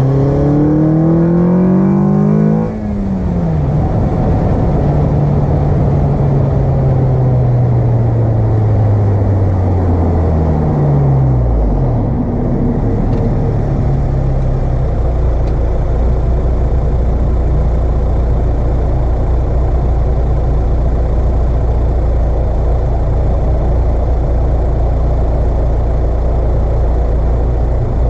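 Car engine fitted with an Acuity cold air intake accelerating with rising pitch, breaking off near 3 s, then falling slowly in pitch as it slows. It settles into a steady low hum from about 14 s.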